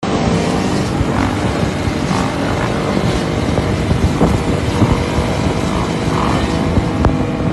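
Several dirt bike engines running together as a pack of bikes rides at speed, one of them close by on a wheelie; a loud, steady mix.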